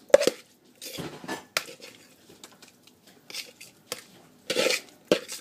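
Spaghetti-and-egg mixture being scraped out of a mixing bowl into a glass baking dish: several sharp clinks and knocks of utensil, bowl and dish, with a couple of longer scrapes between.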